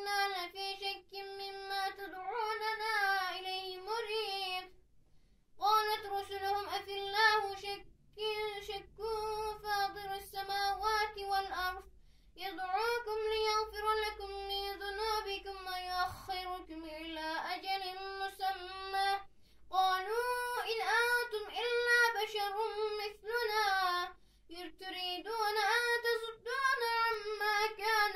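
A boy reciting the Quran aloud in a melodic chant, one voice holding long ornamented phrases with short pauses for breath.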